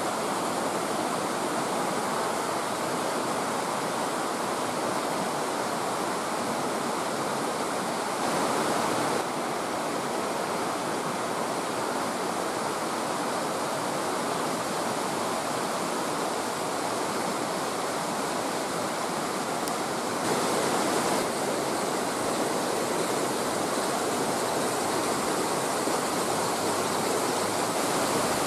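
Steady rush of a mountain stream running over rocks, with a slight swell twice.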